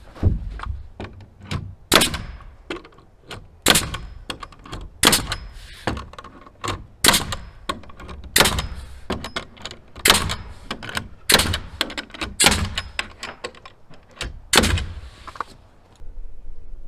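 Nails being driven through plywood sheathing into a wooden stud frame: about ten sharp, loud strikes roughly every one and a half seconds, with lighter knocks in between.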